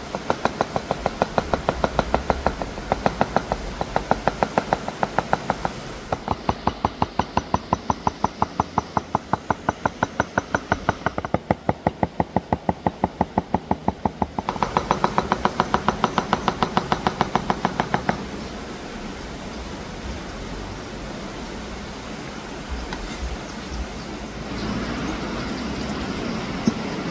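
A knife chopping rapidly and evenly on a wooden cutting board, about four to five strokes a second, for most of the first eighteen seconds. After that only steady outdoor background noise remains, with a few light knocks.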